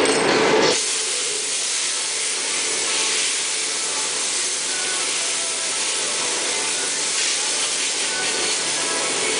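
Steady high hiss in a glassblowing workshop while molten glass is worked on a blowpipe. A louder, deeper rushing noise cuts off abruptly about a second in.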